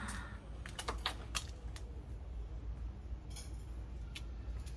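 A few sharp light clicks and clinks of small hard objects being handled, clustered about a second in and again near three seconds, over a steady low background rumble.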